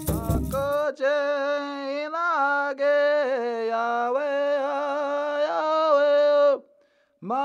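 Drum and rattle music stops about a second in, then a man's voice chants in long, steady held notes. It breaks off briefly near the end and starts again.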